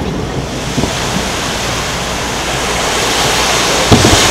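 Fireworks display: a steady rushing noise, with a deep double boom from a fireworks shell about four seconds in.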